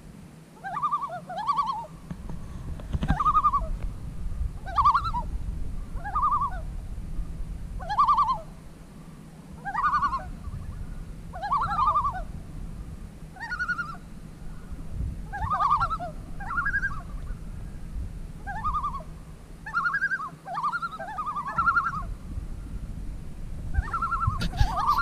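A bird calling over and over, short fluttering calls of about half a second, one every one to two seconds, over a low steady rumble.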